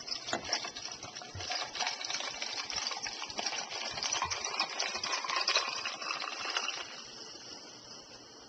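Carbonated mineral water fizzing, a dense fine crackle that fades slowly over several seconds.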